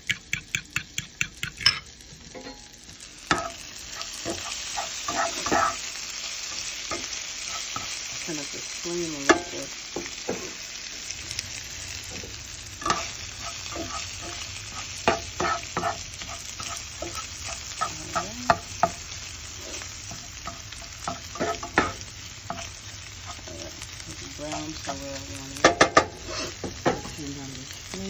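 Eggs being whisked in a bowl, the utensil clicking against the side about four times a second, stopping about two seconds in. Then diced Dominican salami sizzling as it fries in a pan, with a spatula scraping and tapping the pan now and then.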